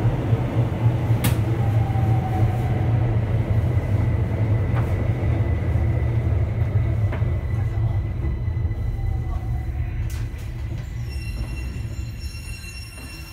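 Keihan 800 series electric train heard from inside the car: steady low wheel-and-rail rumble with the whine of its Toyo three-level IGBT VVVF inverter sliding down in pitch as the train brakes. The noise dies away as it draws to a stop near the end.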